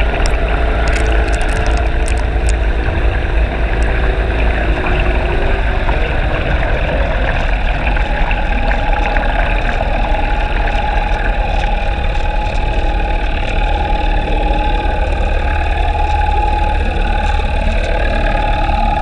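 Boat engine and propeller running steadily, heard underwater: a muffled, constant drone with a low rumble. A steady higher whine joins in about halfway through.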